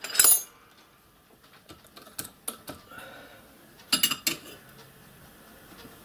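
Steel spanner clinking and knocking against the lever handle of a hand-operated boiler test pump as it is wedged under the handle to hold it down. A loud clatter at the start, a few light ticks, then another clatter about four seconds in.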